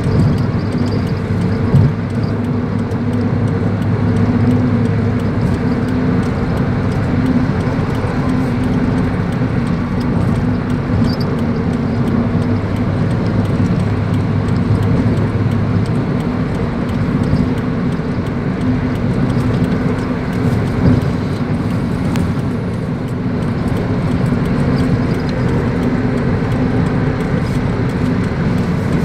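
A car driving: a steady rumble of engine and road noise with a constant low hum.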